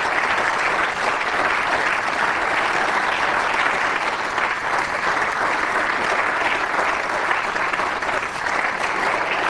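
Members of parliament applauding at a steady level, approving a line in a speech.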